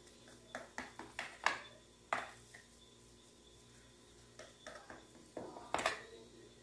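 Kitchen utensils clinking and knocking against cookware: a series of sharp clicks in two clusters, the loudest about a second and a half in and near the end.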